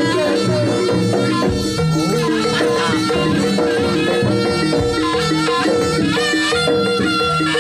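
Javanese jaranan (kuda kepang) accompaniment music playing loudly and steadily, with repeating melodic notes over a regular percussion beat.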